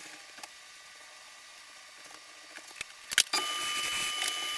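A few sharp metallic clicks of parts and tools being handled, then, a little past three seconds in, a shop machine switches on abruptly and runs with a steady hiss and a thin high whine.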